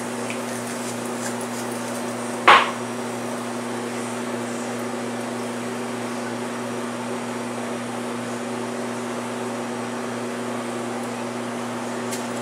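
Steady mechanical hum, with one sharp clack about two and a half seconds in, while a spoon stirs soy-milk gravy in a metal skillet.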